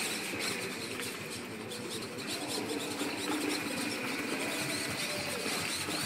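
Water jets from a homemade solenoid-valve fountain spraying and splashing into a pool, a steady hiss. Faint high squeaky gliding tones come and go over it.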